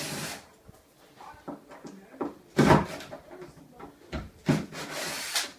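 A caster wheel being worked off the bottom of wooden furniture: a few short scrapes and rubs of wood and metal, the loudest about two and a half seconds in and another longer one near the end.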